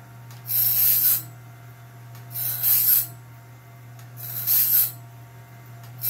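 Cat Claw band sawmill blade sharpener working through a blade on its own: the grinding wheel hisses against a tooth for just under a second, about every two seconds, over the steady hum of its electric motor.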